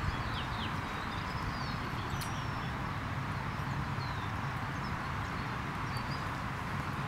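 Outdoor ambience: a steady low rumble and hiss, with short, high bird chirps now and then.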